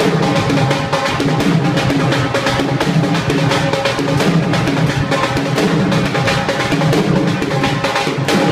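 Bhangra music driven by dense, steady dhol drumming, with held melody notes over the beat.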